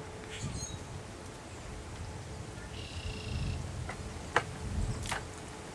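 Outdoor ambience with a faint distant tornado siren holding one steady tone that fades in and out. Low gusts of wind rumble on the microphone, with a few short chirps and clicks.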